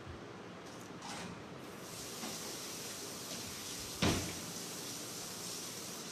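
A single sharp knock about four seconds in, over a faint steady hiss that begins about two seconds in.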